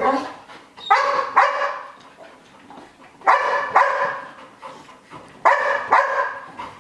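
Dog barking repeatedly, about seven barks, mostly in pairs roughly every two seconds. This is anxious FOMO barking, from fear of missing out while another dog is being trained.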